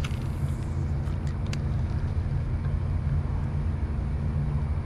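A steady low mechanical hum, like an engine running, with a few faint ticks about a second and a half in.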